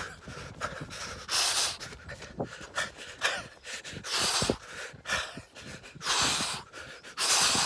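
A man breathing hard while sprinting: heavy, gasping breaths about once a second.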